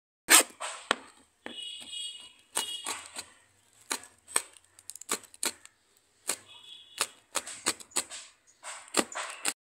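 Kitchen knife slicing fresh chillies on a plastic cutting board: irregular sharp taps of the blade striking the board. A brief high-pitched ringing tone comes twice in between.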